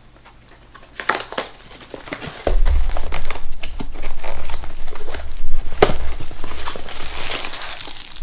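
Cardboard snack-cake box being opened and its cellophane-wrapped zebra cakes pulled out and handled. A few clicks of the box tab come about a second in, then loud, continuous crinkling of the plastic wrapper starts about two and a half seconds in, with a sharp snap near six seconds.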